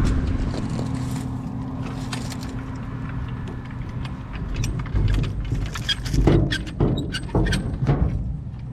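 Grain truck's engine idling steadily, with irregular metallic clicks and rattles joining in about halfway through.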